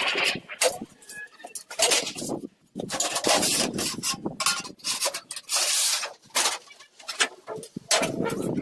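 Repeated rough scraping strokes at an irregular pace, each lasting well under a second, with short pauses between them.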